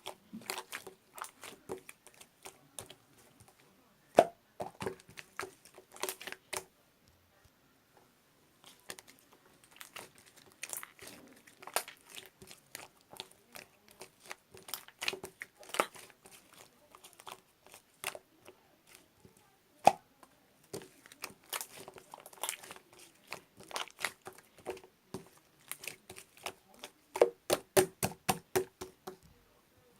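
Slime being squeezed and pressed by hand, making irregular sticky clicks and pops, with a brief pause about seven seconds in and a quicker run of pops near the end.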